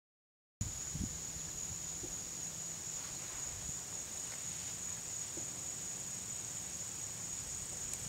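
Insects droning in one steady high-pitched tone over faint outdoor background rumble, starting about half a second in after a moment of silence.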